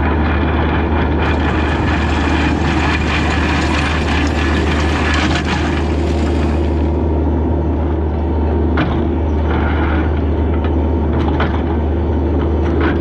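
A diesel engine runs steadily at a constant speed. A loud hiss rides over it from about a second in until about seven seconds in, and a couple of light knocks come later.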